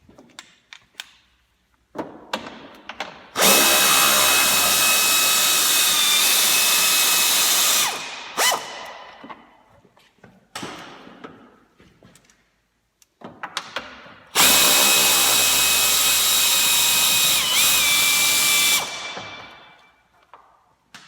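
Power drill running in two long spells of about four and a half seconds each, spinning out the two radiator fan shroud bolts. Its whine dips briefly in pitch near the end of each run. Short clicks and knocks of tools come between the runs.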